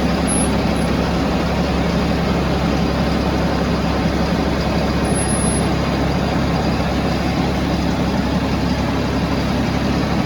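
Tractor engine running steadily, with no change in speed.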